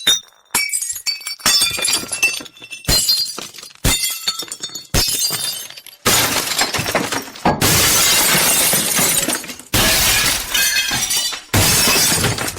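Glass shattering again and again: a quick run of smaller breaks with tinkling tails, then about halfway in four longer, heavier crashes.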